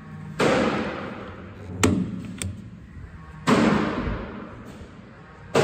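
Three loud bangs a few seconds apart, each dying away over about a second in a reverberant room, with two sharp clicks between the first and second.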